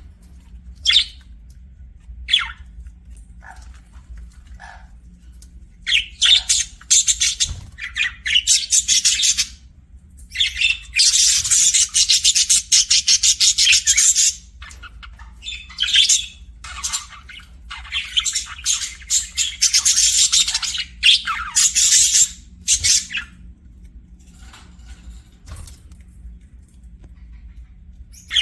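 Budgerigar chirping: a few short single calls at first, then long bouts of rapid, high chattering warble broken by quiet spells.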